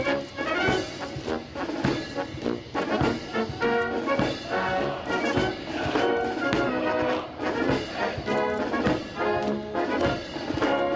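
Military brass band playing a march, brass instruments carrying the tune over a steady beat.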